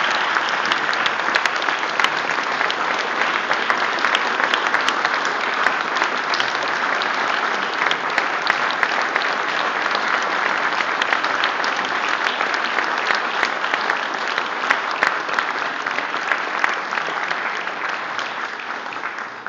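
Audience applauding steadily, a dense sustained clapping that fades near the end.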